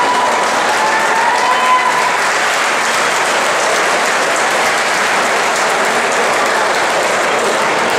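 Crowd applauding steadily around a fight cage.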